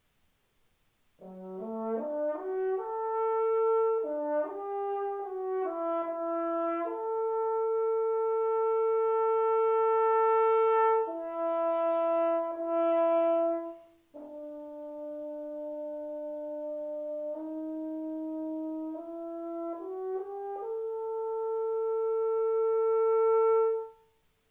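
French horn played solo, unaccompanied: a phrase climbs quickly from a low note into long held notes, and after a brief break for breath about halfway, a second phrase begins softer and swells into a loud held note that cuts off near the end.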